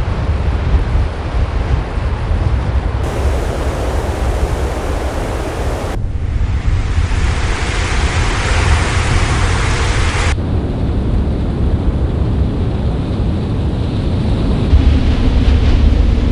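Sound-design noise soundscape: a heavy low rumble under a steady hiss, with brighter layers of hiss that cut in and out abruptly about three, six and ten seconds in. The rumble grows louder near the end.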